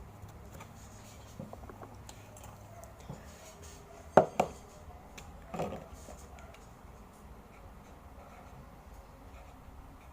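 Quiet handling noises: a few faint clicks, then a sharp knock about four seconds in and a softer, drawn-out one about a second and a half later.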